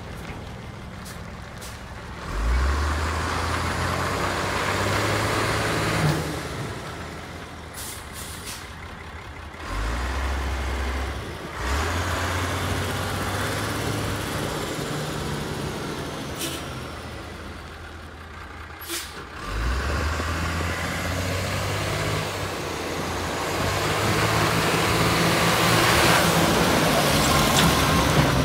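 Truck-mounted tree spade's diesel truck engine running and revving up in several steps as the hydraulics raise and fold the spade, with a hiss over the engine and a few short clicks.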